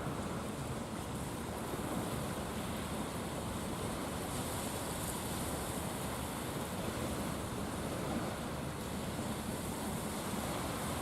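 Steady wash of wind and waves, an even noise with no distinct events.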